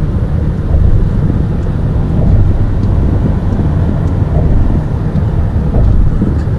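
Steady low rumble of road and wind noise inside a car at highway speed, with wind buffeting the microphone.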